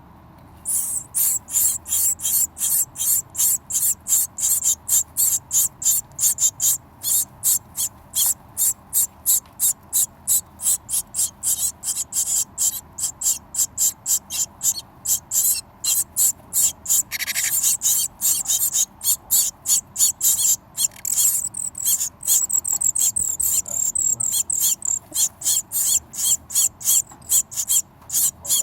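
Hungry birds calling for food in a fast, steady series of short high-pitched notes, about three a second, starting just under a second in.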